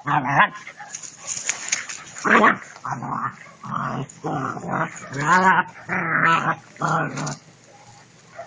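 Two-month-old German shepherd puppies growling as they play-fight, a quick run of short growls that stops about seven seconds in. It is play growling, not aggression.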